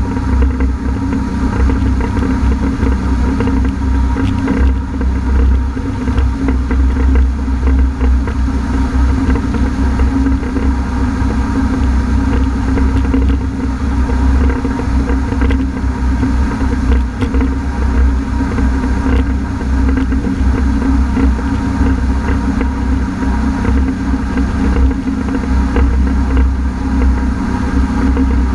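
Honda AquaTrax F-12X personal watercraft running steadily underway: a loud, even engine drone with rushing wind and water noise that holds at one level throughout.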